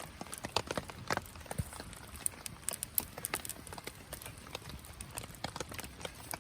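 Wood fire crackling, with many irregular sharp pops and snaps.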